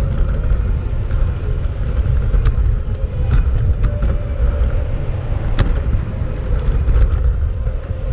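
Street traffic heard from a moving bicycle: a steady low rumble, with a few short sharp clicks.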